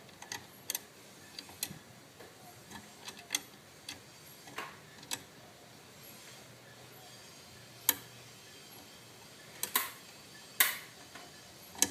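Irregular metal clicks and taps of a screwdriver and screw against a door closer arm as the screw is being fitted and won't go in. The loudest knocks come in the second half.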